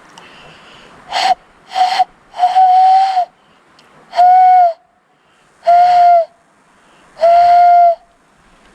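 Aztec death whistle blown six times, each blast a shrill, hissing scream held at one steady pitch. The first two blasts are short and the next four are longer, with brief gaps between them.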